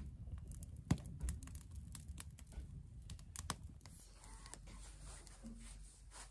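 Small cooking fire of twigs and dry straw crackling, with irregular light clicks and one louder knock about a second in.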